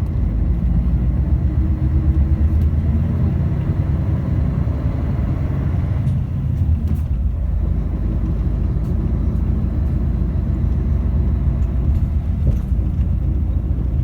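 City bus's diesel engine running, heard from inside the passenger cabin. The engine note changes about halfway through.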